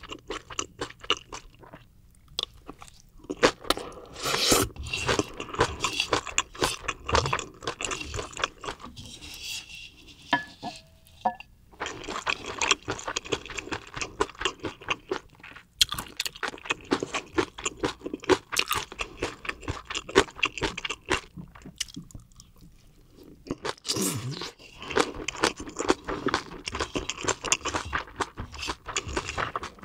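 Close-miked chewing of crunchy food: dense runs of crisp crunches with short pauses between mouthfuls.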